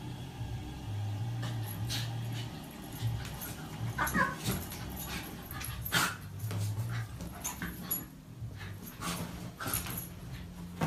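A dog giving short cries while play-fighting with a cat, over scuffling and soft knocks of paws and bodies on the bedding; one short pitched cry bends up and down about four seconds in.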